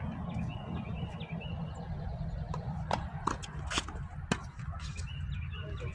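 Tennis ball struck by rackets and bouncing on a hard court during a doubles rally: a few sharp pops spaced about half a second apart near the middle. A steady low rumble and faint bird chirps run underneath.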